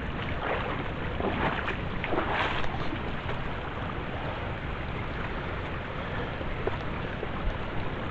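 Steady rush of river water with wind on the microphone, and a few short louder bursts in the first three seconds.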